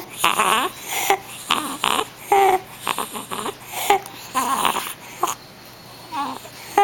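Young child with croup breathing noisily: a harsh, high-pitched stridor on breaths, coming every half second to second, with some crying-like whimpers mixed in, easing off near the end. The stridor is the sign of the airway narrowing from croup.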